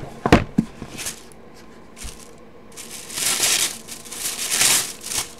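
A cardboard box handled with two sharp knocks near the start, then paper packaging rustling and crinkling in two spells as the box is unpacked.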